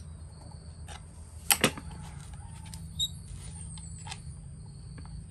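Metal clicks of a hex key working the bolts on a Shindaiwa S231 two-stroke engine's muffler cover, with two sharp clicks close together about a second and a half in and a lighter one a little later.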